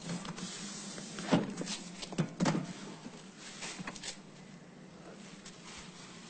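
Luggage being handled at a car's open boot: a few clunks and knocks, the loudest about a second and a half and two and a half seconds in. A steady low hum runs beneath.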